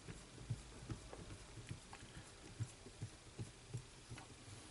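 Faint, irregular small clicks and ticks of a screwdriver turning out a small screw from a circuit board on a cassette tape mechanism.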